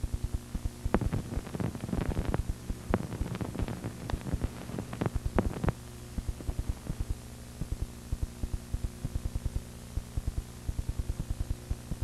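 Noise from an old film print's soundtrack over silent end titles: a steady hum with rapid, even low thumps about five a second. Crackling clicks from dirt and scratches come in from about a second in and die away about six seconds in.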